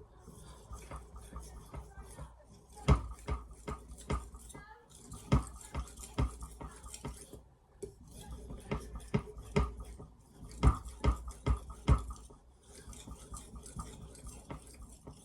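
Steel knife blade stroked back and forth on a wet 6000-grit polishing whetstone: repeated scraping strokes with many sharp clicks and knocks.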